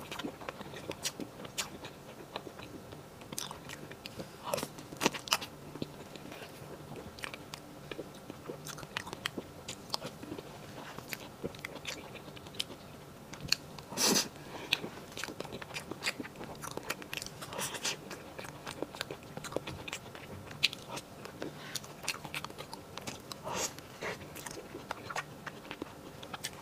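A person eating soft cream cake close to the microphone: chewing and wet mouth smacks and clicks, irregular and scattered, with one louder click about halfway through.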